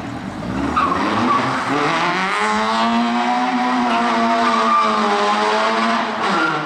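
Citroën Saxo VTS rally car's engine revving hard as the car slides around a barrel, with tyres squealing. The revs climb in the first couple of seconds, hold high and steady, then drop near the end.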